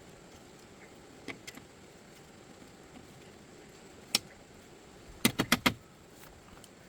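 Sharp knocks or taps: a faint one about a second in, a louder one about four seconds in, then four in quick succession near the end.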